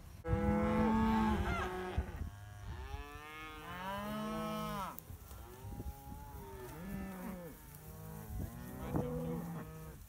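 A herd of Angus cattle mooing: a series of long calls from several animals, overlapping one another, the loudest in the first two seconds.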